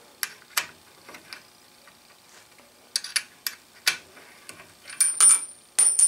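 Light metallic clicks as a pin spanner turns out a small threaded metal cap, then near the end the cap drops and bounces on the floor in a quick clatter of clicks with a high ringing.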